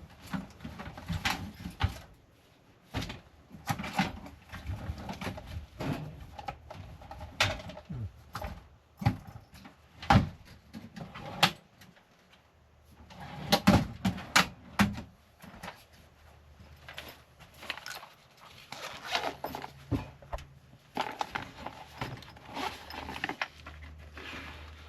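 Small hard objects clicking, knocking and clattering irregularly as they are handled and rummaged through, with a few sharper knocks.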